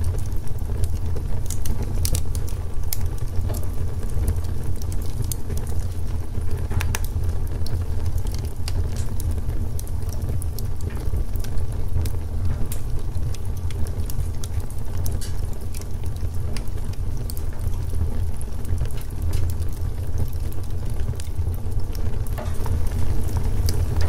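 Wood log fire burning: a steady low rumble of flames with scattered sharp crackles and pops from the burning wood.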